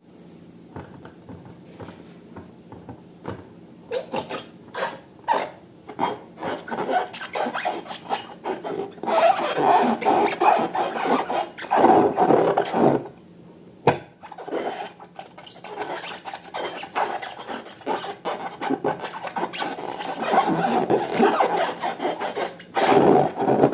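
Slime being worked and mixed, giving a continuous run of sticky crackles, pops and squelches. It swells louder for a few seconds in the middle and again near the end.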